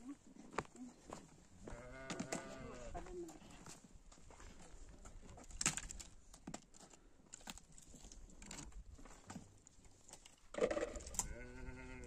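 Sheep bleating twice: one wavering call about two seconds in and another near the end, with scattered light clicks and knocks between.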